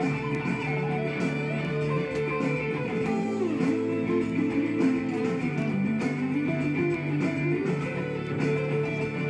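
Jackson Dinky JS32 electric guitar through a Hughes & Kettner Grandmeister Deluxe 40 tube amp, playing an improvised lead of quick runs that climb and fall in pitch. Underneath, a backing track holds steady chords.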